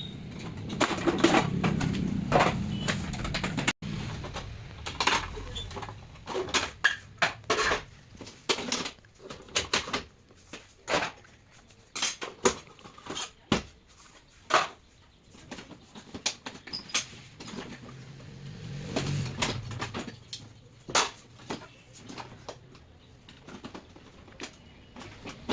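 Plastic housing parts and screws of an HP LaserJet 1005 printer being handled and pulled apart during disassembly: irregular clicks, knocks and clatter, with a low rumble in the first few seconds.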